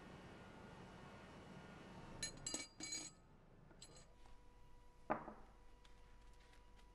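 Stainless-steel rigging fittings clinking against each other a few times in quick succession, ringing briefly, followed about two seconds later by a single sharper knock over a faint steady room hum.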